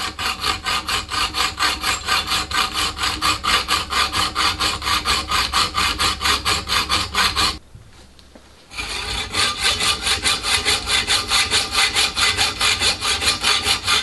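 Hacksaw cutting a slot in 6mm aluminium alloy plate by hand, fast even back-and-forth strokes at about four or five a second. The sawing stops for about a second around the middle, then carries on.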